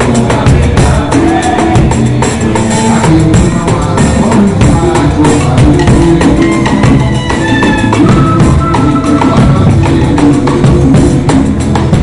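Live pagode samba music: a band playing over a busy, steady percussion beat of tambourine-like jingles and drums.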